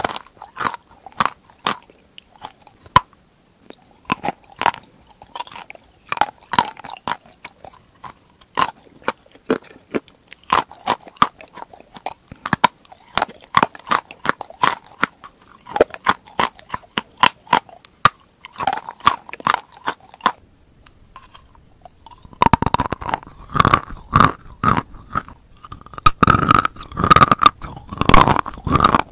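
Close-miked crunching and chewing of edible chalk: a run of sharp, brittle crunches as pieces are bitten and chewed. About three quarters of the way through, the crunching becomes denser and louder.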